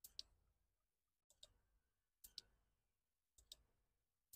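Faint, crisp clicks of Shimano Ultegra Di2 12-speed electronic shifting as the rear derailleur is shifted through the gears, several of them in quick pairs.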